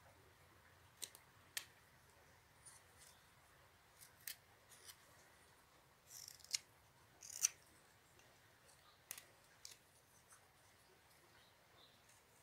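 Whittling knife paring thin shavings off a small alder-wood carving: short, faint, crisp cuts at irregular intervals, about a dozen in all, the loudest a pair of strokes about six and seven seconds in.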